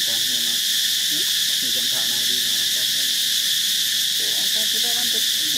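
Steady, high-pitched insect chorus, holding one even level throughout.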